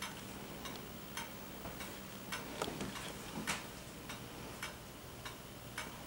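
Faint ticking clicks, about two a second and slightly uneven, a little louder around the middle, over a low steady room hum.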